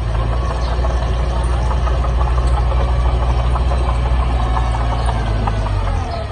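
Heavy diesel engine of an earth-moving machine running steadily with a deep drone, which shifts lower about six seconds in.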